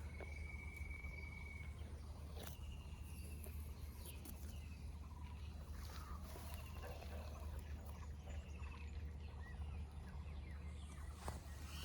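Faint forest ambience of birds and insects calling: a steady high-pitched call for the first two seconds, then scattered short chirps. A low steady rumble runs underneath, with a couple of light clicks.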